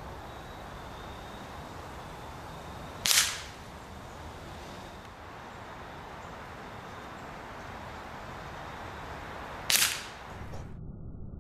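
Two shots from a Gamo pellet air rifle, about seven seconds apart, each a short sharp crack as the pellet strikes an old iPod.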